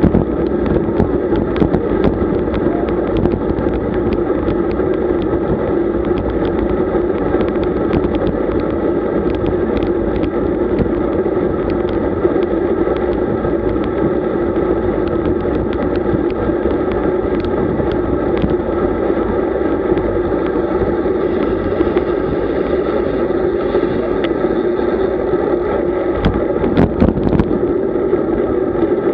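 Steady rumble of riding noise on a camera mounted on a road bike: wind and road vibration with a constant drone, dotted with small clicks and knocks from the bumps.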